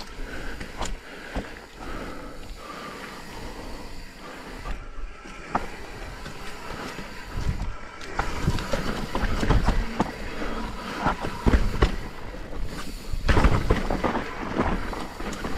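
Mountain bike riding down rough rocky trail: tyres rolling over rock, the bike rattling, and frequent knocks from hits, with wind rumble on the microphone. It gets louder and rougher about halfway through.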